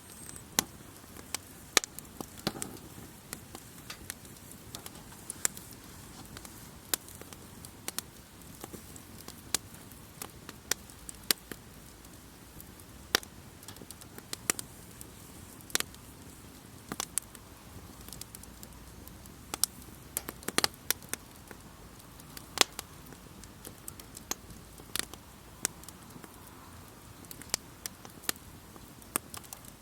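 Wood campfire crackling: sharp, irregular pops and snaps over a low, steady hiss of burning.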